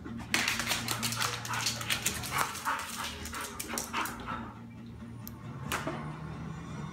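A dog's claws clicking and scrabbling rapidly on a tile floor as it chases a laser dot, dense for about four seconds and then sparser, with a few short whimpers and barks.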